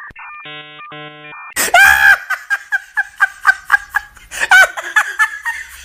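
A short run of steady electronic beeping tones, then a loud burst of high-pitched giggling laughter, repeated ha-ha-ha pulses about five a second.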